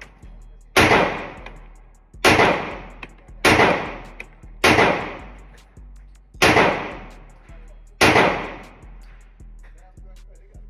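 Six gunshots fired one at a time at a steady pace, roughly one every second and a half, each followed by a short echoing decay.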